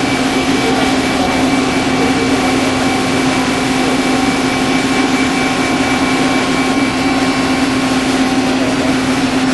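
Wire straightening and cutting machine running: a steady mechanical hum and whir with one constant low tone, unbroken throughout.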